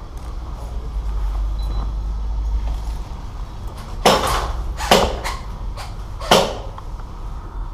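Three sharp cracks, irregularly spaced a second or so apart, over a steady deep rumble of wind or handling noise on the microphone.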